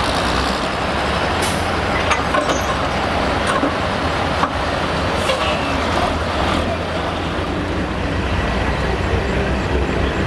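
Semi truck's diesel engine running steadily, with several short sharp sounds on top.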